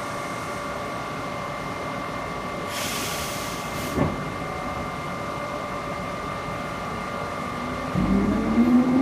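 Engine room of a Siemens ACS-64 electric locomotive: a steady electrical whine over equipment hum, with a short hiss about three seconds in and a thump about a second later. Near the end the traction equipment powers up and a loud rising whine of several tones begins, the start of acceleration.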